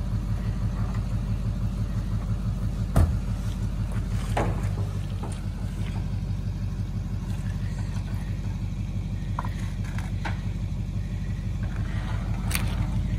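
A dually pickup truck's engine idling steadily, with a single sharp knock about three seconds in and a few lighter clicks later.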